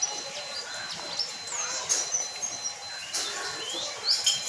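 White-eye (pleci) chirping and singing in short, high, quick sliding notes, scattered irregularly.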